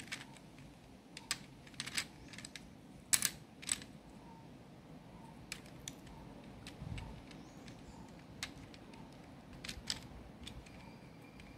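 Plastic keycaps of a PC keyboard clicking as they are pried off and handled: scattered sharp clicks, loudest in the first four seconds, then a few fainter ones.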